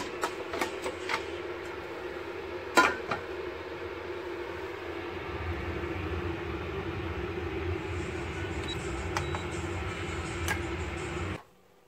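Rice cooker's inner pot being set into the cooker, with a sharp knock about three seconds in and several lighter clicks over a steady low hum. Near the end come a couple of faint short beeps as the control-panel buttons are pressed.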